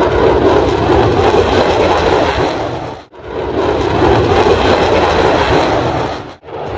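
Fighter jet engine noise, a loud steady rumbling roar, broken by two abrupt cuts about three seconds in and near the end.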